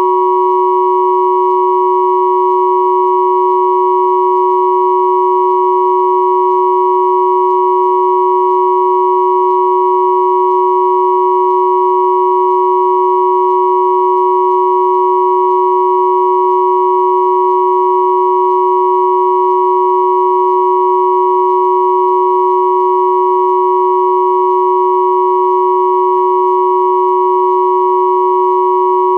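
Three pure sine tones at 369, 963 and 1111 Hz sounding together as one unchanging electronic drone, with fainter higher tones above them.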